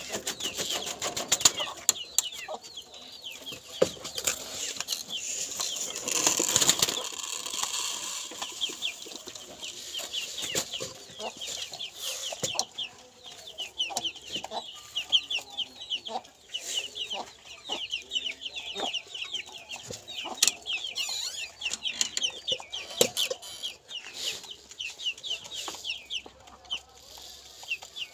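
Birds chirping continuously in quick, high-pitched calls, with occasional sharp knocks and a brief rush of noise about six seconds in.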